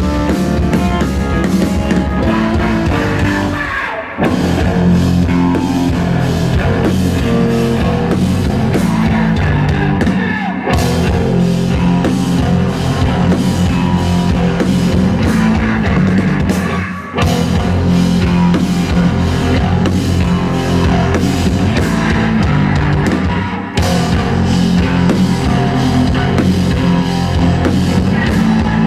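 Live noise-rock band playing loud, with a drum kit, heavy keyboard bass and guitar, heard from the audience. The music cuts out for a split second four times at even intervals, then crashes back in.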